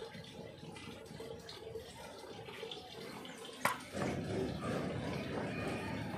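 Running water, with a sharp click a little past halfway, after which the water gets louder.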